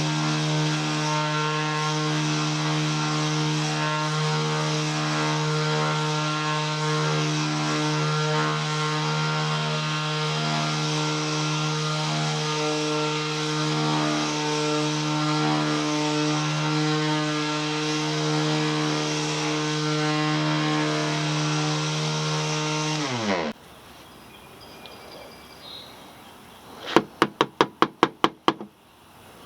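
Ryobi 18-volt One+ cordless 5-inch random orbital sander running steadily on wood, then switched off, its pitch falling quickly as the motor spins down. Near the end, a quick series of sharp knocks.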